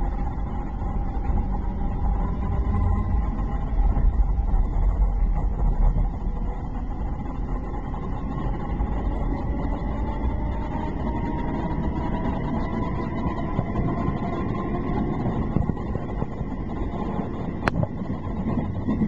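Electric train running along the track, heard from on board: a steady low rumble of wheels and running gear, heaviest a few seconds in, with a faint whine rising slowly in pitch. A single sharp click near the end.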